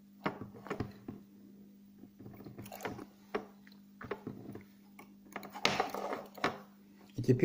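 Fingers working and tightening a knot joining two nylon fishing lines, close to the microphone: scattered small clicks and ticks, with a longer rustle a little past the middle, over a steady low hum.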